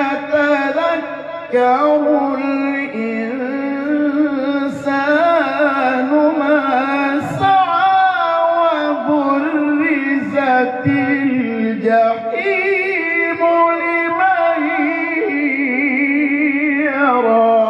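A man reciting the Quran in the melodic, ornamented mujawwad style into a microphone, holding long wavering notes with vibrato and pausing only briefly for breath.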